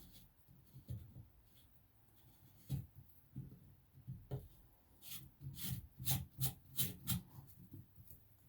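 Pop-up drain assembly being threaded together by hand: faint rubbing and scraping of the threads with scattered clicks, then a quick run of sharp ticks, about three a second, in the second half.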